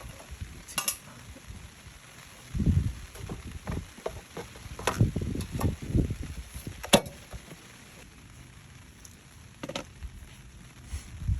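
Scattered knocks, clicks and scrapes of kindling being handled while lighting a fire, with a brief sizzle of a match being struck about a second in. The sharpest clicks come about five and seven seconds in.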